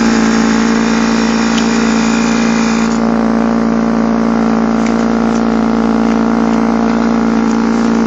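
Nissan C35 Laurel idling steadily, heard close at its dual exhaust tips with the removable silencer inserts fitted backwards. It is a loud, even drone that holds one pitch, with no revving.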